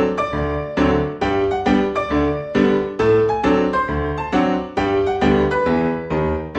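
Background music: piano playing a steady run of repeated chords.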